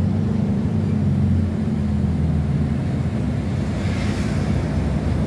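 City bus running, heard from inside the passenger cabin: a steady low hum with a brief hiss about four seconds in.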